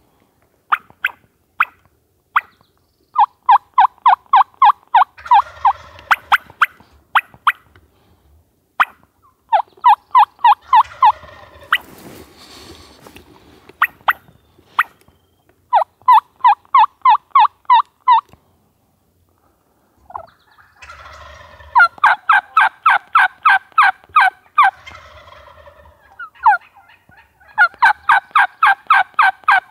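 Wild turkeys calling at close range: loud runs of yelps, about five notes a second, come in series, and between them a Merriam's gobbler's rattling gobble breaks in several times.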